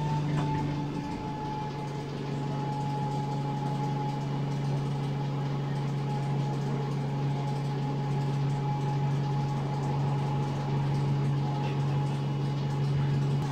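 ADL Enviro 200 bus engine idling while the bus stands still, heard inside the passenger saloon: a steady low hum with a fainter steady whine above it, holding one pitch throughout.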